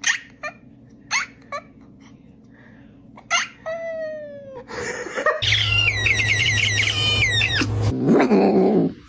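Cat vocalizing: a few short chirps, then a falling meow, then longer wavering, warbling calls.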